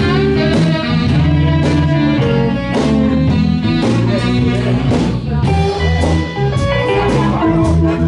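Live band playing a blues-style number: guitar over bass and a steady beat.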